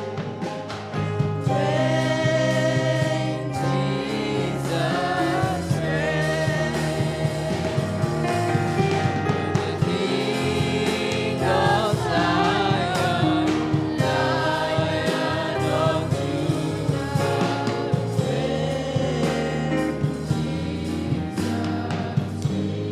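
Gospel music with a choir singing over a steady instrumental backing with a beat.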